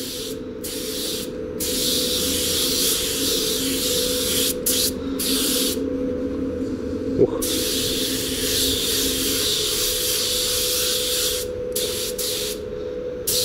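Anest Iwata LPH-80 mini spray gun spraying primer onto a plastic bumper, a steady hiss of atomising air that cuts out briefly several times as the trigger is released between passes. A steady hum runs underneath.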